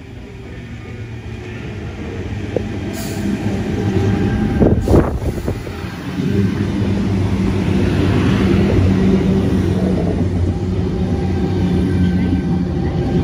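Sydney Trains C set electric double-deck train arriving and passing close by: a rising rumble of wheels on rail, loudest as the leading car goes past about five seconds in. After that comes a steady hum as the train slows along the platform.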